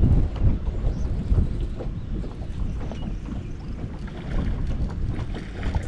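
Wind buffeting the microphone in uneven low gusts, a rumbling noise that swells and fades.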